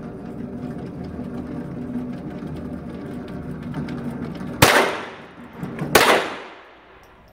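Motorised target carrier running along its overhead track with a steady hum as it brings a paper target up the lane. Two loud gunshots ring out over it, about a second and a half apart, each echoing off the walls of the indoor range. The hum dies away soon after the second shot.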